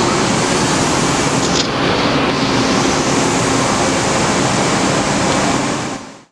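Steady running noise of shop machinery: an even hiss with a faint low hum under it, fading out near the end.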